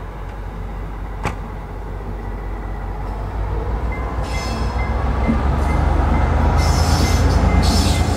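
Green Cargo T44 diesel-electric shunting locomotive running slowly past, its low engine rumble growing louder through the second half as it draws near. A single sharp click sounds about a second in, and short bursts of high-pitched squealing come from the moving locomotive in the last few seconds.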